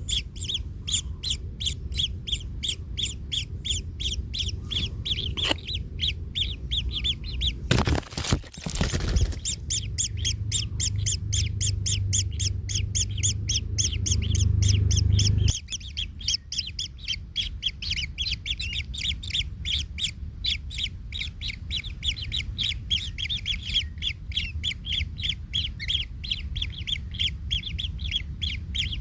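Kingfisher nestlings calling without pause in a fast series of short, raspy high notes, several a second. About eight seconds in there is a brief loud rustling clatter, and a low rumble under the calls stops suddenly about halfway through.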